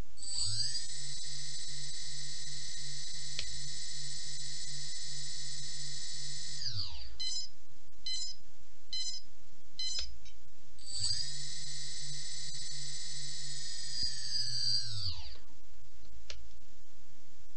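Unpropped brushless quadcopter motors, driven by their ESCs from the transmitter throttle, spin up quickly and run at a steady speed with a high whine, then wind down about seven seconds in. A few short beeps sound in the pause, then the motors spin up again about eleven seconds in, hold, and wind down near the end.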